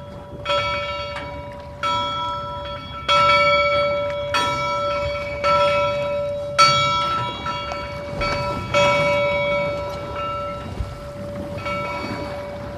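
A bell rung repeatedly, about a strike a second at uneven spacing, each strike ringing on into the next. It is typical of a church bell tolling. A low steady rumble runs underneath.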